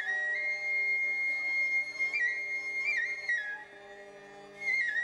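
Background music: a flute melody held on long notes with quick ornamental turns, over steady sustained low notes, pausing briefly near the end.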